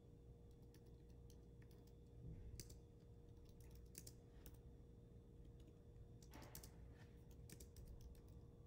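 Faint, irregular keystrokes on a computer keyboard as text is typed, over a low steady hum.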